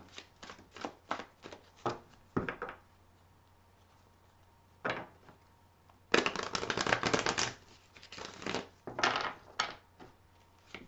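Deck of divination cards being shuffled by hand: scattered light card clicks at first, a short pause, then dense crackling rustles of cards riffling and sliding together in several bursts, the longest a little past the halfway point.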